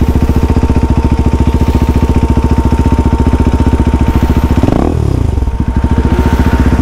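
KTM RC 390's 373cc single-cylinder engine idling through a Yoshimura full-system exhaust with a steady, rapid beat. About five seconds in, a quick throttle blip revs it up and straight back down to idle.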